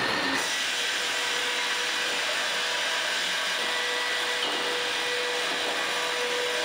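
LVL mill machinery running: a steady, even whooshing noise with a faint constant hum, with no separate strokes or changes.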